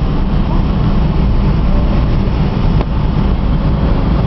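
Cabin noise inside a Boeing 777-300ER rolling along the ground: its GE90 jet engines running with a steady low rumble from the wheels and airframe, heard through the cabin wall.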